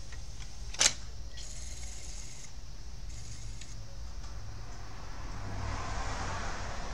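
A sharp click about a second in, then the Magnavox CDB582 CD player's tray mechanism, freshly oiled after sticking on eject, drawing the loaded disc tray in with two short motor runs. A whir swells in the second half as the player takes up the disc.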